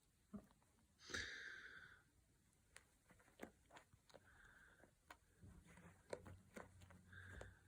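Near silence: faint scattered clicks and a short soft rustle about a second in, with a low hum coming in near the end.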